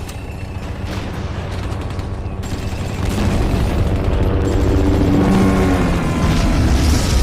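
Cinematic surround-sound demo effects: a dense, heavy low rumble with booms that swells about three seconds in, while several tones glide downward in pitch.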